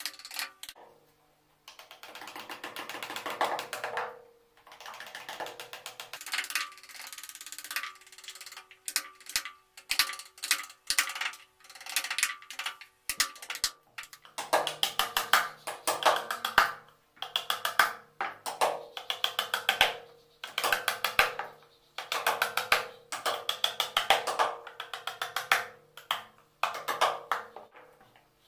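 Small metal-headed hammer rapidly tapping a carving chisel into a wooden panel, in quick runs of strikes about a second long separated by short pauses.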